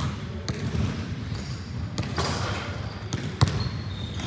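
Basketballs bouncing on a gymnasium floor as players dribble, an irregular series of sharp bounces with a short echo after each, the loudest about three and a half seconds in. A thin high squeak comes in near the end.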